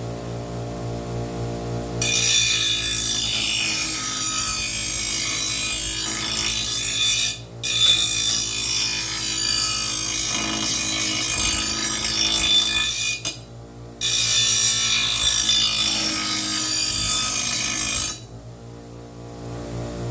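Steel lawn mower blade pressed against a running grinder's stone wheel, grinding its edge sharp in three long passes, with short breaks about seven and a half and thirteen seconds in. The grinder's motor hums steadily underneath.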